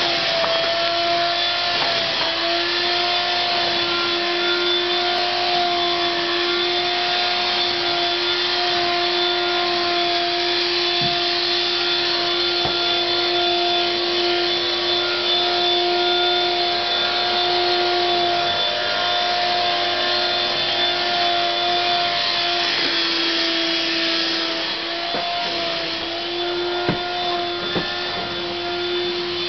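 Vacuum cleaner running steadily with a constant whine. Its pitch dips for a couple of seconds about three-quarters of the way through, and a few light knocks come near the end.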